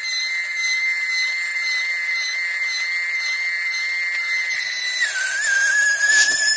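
Battery-operated toy Boeing 727 airliner making its high-pitched jet whine, a steady whistling tone that dips slightly in pitch about five seconds in and then holds.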